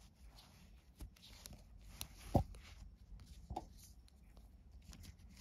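Nylon paracord collar being handled, the cord rustling, with a few light clicks and two brief metal clinks from its steel D-ring and buckle, the loudest a little past two seconds in.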